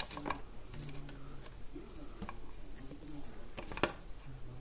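Light clicks and tapping as an orange tabby cat paws at a cat-teaser toy in a wooden cubby: one sharp click at the start, a couple of softer ones just after, and a louder single click near the end.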